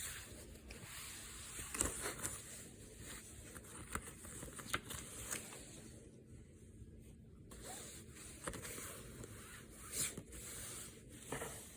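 Faint scraping, sliding and clicking of cardboard slipcovers and plastic Blu-ray cases being handled, in scattered short bursts.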